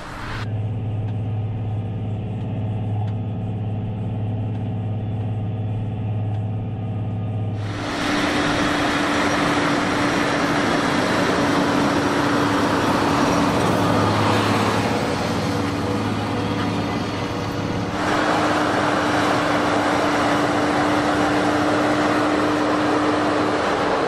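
A Fendt tractor's six-cylinder diesel engine runs steadily under load while pulling a plough. For the first several seconds it is a low, even hum. About eight seconds in it turns louder and rougher, heard close with a steady drone.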